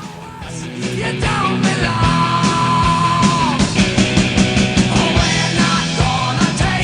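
Background rock music with a steady beat and a sung or held melody line, building up about a second in.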